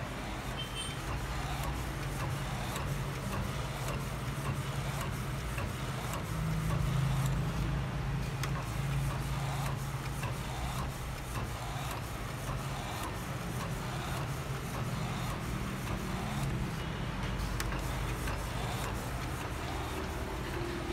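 Epson L1300 inkjet printer printing: the print-head carriage shuttles back and forth over a steady motor hum, with many short mechanical clicks from the paper feed and carriage.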